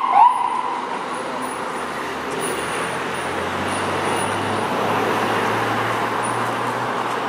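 A brief rising siren chirp right at the start, then steady road traffic noise with a low vehicle engine hum that grows slightly louder through the middle.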